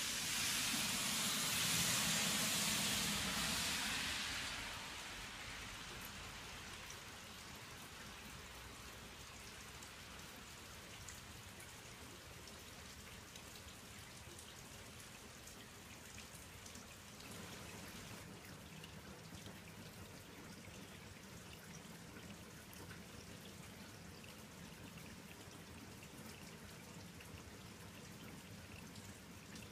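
Faint, steady outdoor background hiss with tiny scattered ticks, after a louder rush of noise in the first four seconds.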